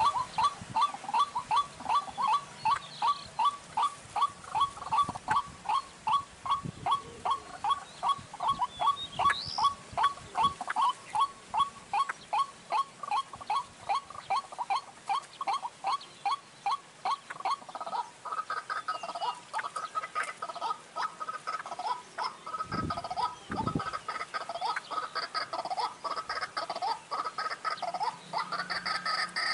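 White-breasted waterhen calling: a fast, even run of short notes, about three a second. From about two-thirds of the way in, the notes turn irregular and harsher.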